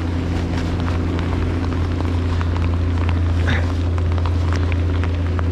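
Raindrops ticking irregularly on the camera and rain gear, over a steady low drone.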